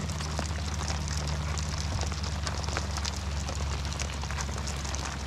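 Rain pattering steadily, thick with sharp drop ticks, with wind rumbling on the microphone and a low steady hum underneath.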